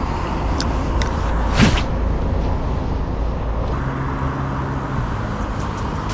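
Steady rumble of road traffic, with a brief whoosh about one and a half seconds in.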